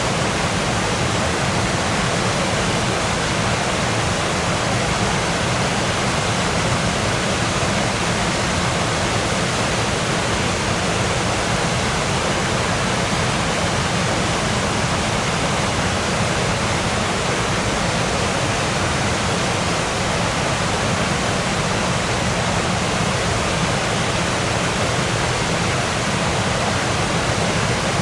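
Waterfall: falling water rushing in a steady, even roar with no breaks or changes.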